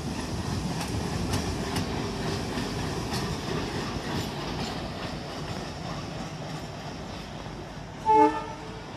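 WDM3A diesel-electric locomotive's ALCO V16 diesel engine running as it passes close by on its own, with its wheels clicking over the rail joints. A short, loud horn blast sounds about eight seconds in.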